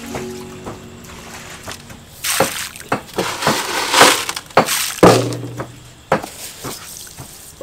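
A plastic bag crinkling and rustling in a few loud, crackly bursts while salt and MSG are shaken out of it into a pot of water.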